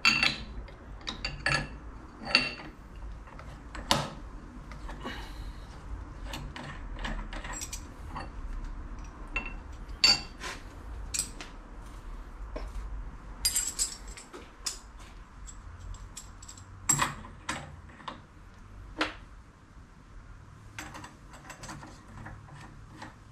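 Irregular metallic clinks and knocks of steel hand tools and mill tooling being handled, set down and fitted at the spindle of a benchtop milling machine, some with a brief high ring.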